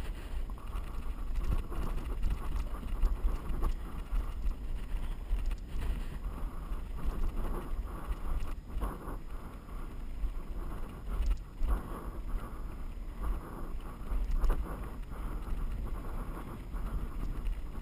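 Mountain bike riding fast downhill over a loose, rocky dirt track: wind buffeting the microphone as a steady low rumble, with irregular knocks and rattles as the tyres hit stones and the bike jolts.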